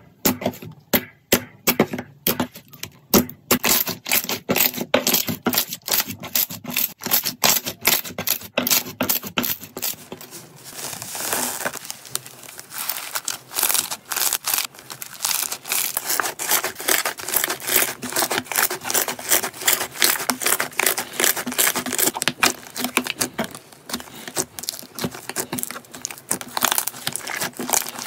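Hands squeezing, poking and kneading thick slime, making a run of sharp wet clicks and crackling pops. The clicks come as separate strokes at first, then about ten seconds in they thicken into a dense, steady crackle.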